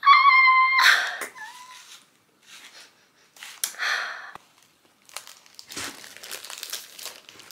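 Clear plastic protective film crinkling in irregular bursts as it is handled around a YouTube Silver Play Button plaque. A short steady high-pitched tone sounds at the very start, lasting under a second.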